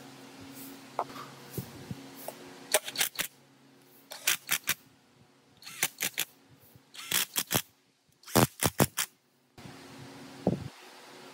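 Sharp clicks and taps in quick clusters of three or four, five clusters in all, over a low steady hum that drops out for most of the stretch.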